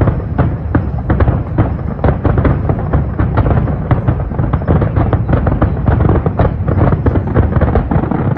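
Fireworks finale barrage: many aerial shells bursting in rapid succession, a dense run of sharp bangs and crackles over a continuous low rumble.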